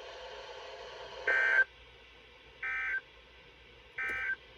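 Weather radio receiver sounding the EAS end-of-message code: three short bursts of digital data tones about 1.3 seconds apart, over faint radio hiss. The bursts mark the end of the alert broadcast.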